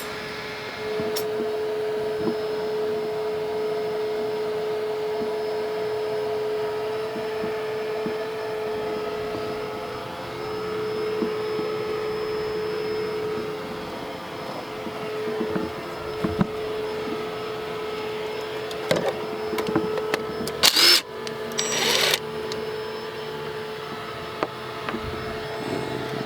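A vacuum cleaner running steadily in the background with one constant tone, over scattered small clicks and knocks of hand tools. About twenty seconds in come two short, loud noisy bursts.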